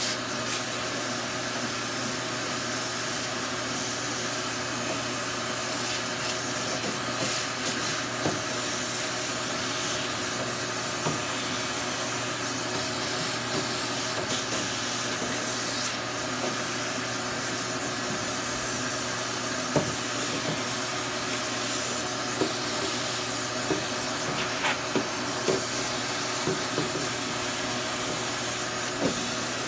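Shop vacuum running steadily while its hose nozzle is worked along a dirty car cowl panel, sucking up dirt and debris. Scattered short sharp clicks break through the steady suction noise.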